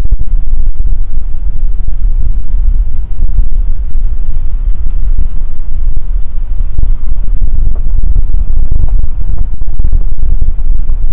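Strong wind buffeting the microphone: a loud, continuous low rumble with constant crackling dropouts.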